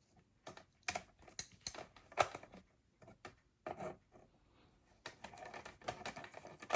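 Hard objects being handled: irregular sharp clicks and light knocks, with some soft scraping and rubbing in the second half.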